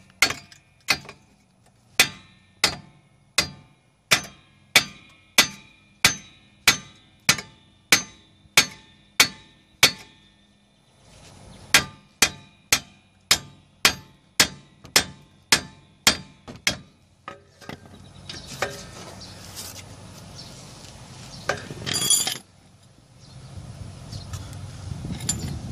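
Hammer blows on the steel steering knuckle of a 2006 Chevrolet Aveo, struck to break the stuck knuckle loose from the lower control arm. The blows come steadily at about one and a half a second, each ringing briefly, with a short pause about ten seconds in before they resume. They stop about seventeen seconds in, and a louder clatter follows near the end.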